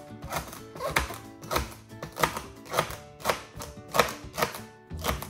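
Kitchen knife chopping celery into chunks on a chopping board, with a sharp knock about twice a second, over background music.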